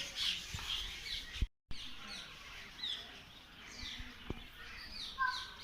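Many birds chirping, with short falling chirps overlapping. Sound cuts out completely for a moment about a second and a half in, and a few faint knocks come through.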